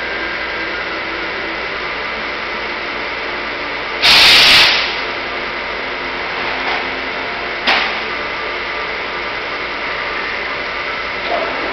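Milling machine running steadily in a machine shop. About four seconds in there is a loud hiss lasting about half a second, and a sharp click comes a little before eight seconds.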